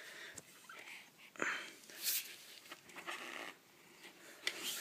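Faint, scattered clicks and rustling of hands fitting a small clip-on rear bike light onto the bike.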